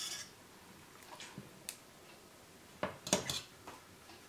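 Metal fork clinking and scraping against the inside of a pressure cooker pot while prodding cooked pork hocks in broth: a few light, separate clinks, with a quick cluster about three seconds in.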